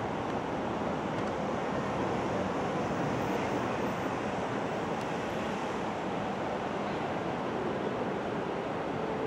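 Steady rushing roar of airliner jet engines across the airfield, even and unbroken.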